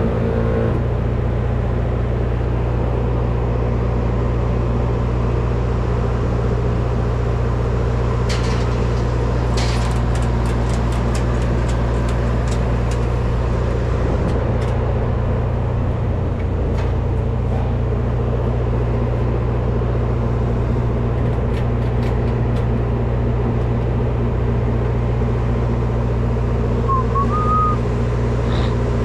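Truck driving along with a steady engine and road drone. A brief run of light ticks comes about ten seconds in.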